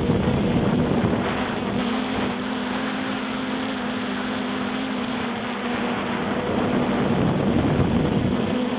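A multirotor drone's propellers humming steadily while it hovers, with wind rushing and gusting across the microphone.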